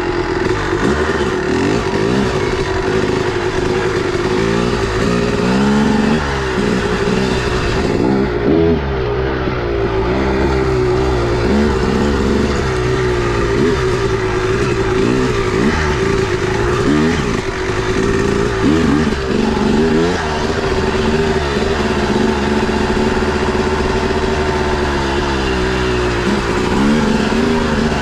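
Two-stroke dirt bike engine under way, its pitch rising and falling over and over as the throttle is worked.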